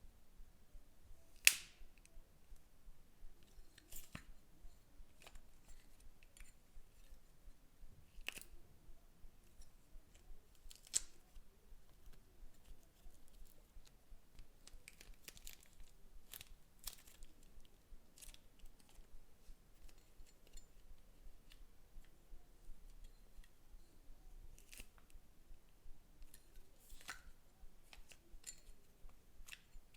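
Slime being worked by hand or tool: irregular sharp clicks and small crackling pops, the loudest about a second and a half in.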